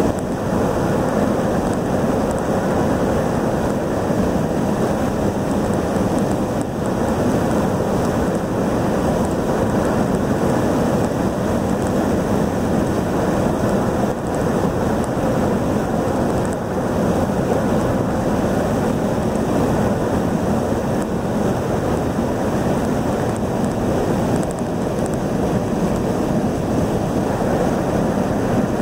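Steady road and wind noise inside a car cruising at highway speed.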